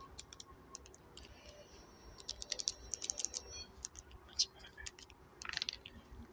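Small plastic clicks of a TV remote's buttons pressed in quick runs, thickest a little after two seconds in. A brief handling rustle comes about five and a half seconds in.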